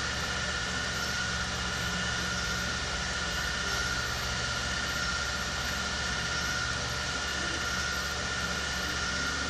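Steady background machine noise: a low hum with a faint steady whine above it, under an even hiss, like a fan or air conditioner running in the room.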